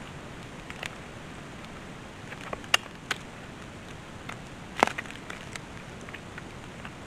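Plastic electric-fence insulators being snapped onto a steel T-post: scattered sharp clicks, with two louder snaps about two seconds apart near the middle.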